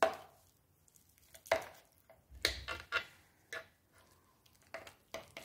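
A metal fork and knife cutting a slice of soft baked pear dessert, clicking and scraping against the plate in a series of irregular taps.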